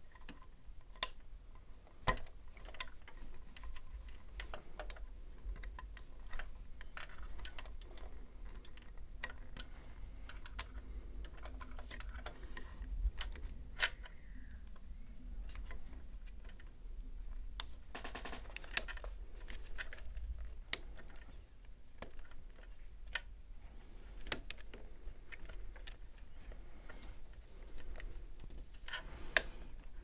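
Irregular small plastic clicks and taps from handling the AIO pump block's plastic mounting bracket and locking ring, with a few sharper clicks standing out.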